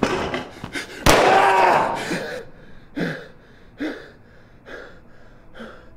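Two pistol shots, a sharp crack at the start and a louder one about a second in that rings on, with a man's voice crying out over it. Then four short gasps, each falling in pitch.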